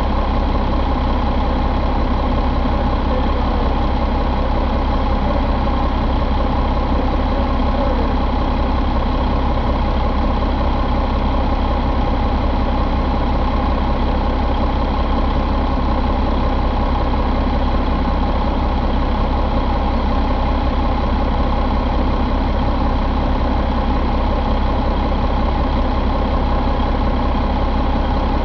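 Mercedes-Benz MBE4000 inline-six diesel engine idling steadily, with no revving or change in pitch.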